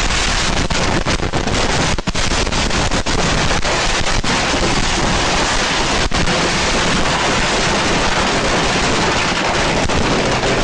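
A stash of consumer fireworks going off all at once by accident: a dense, unbroken barrage of bangs and crackling. Separate sharp bangs stand out in the first six seconds or so, then it settles into a steadier din.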